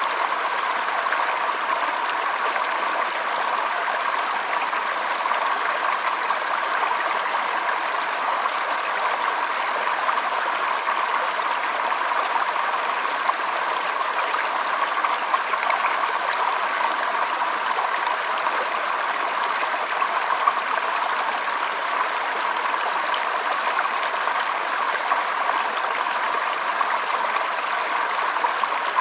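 Water flowing in a stream, a steady, even rush with no breaks.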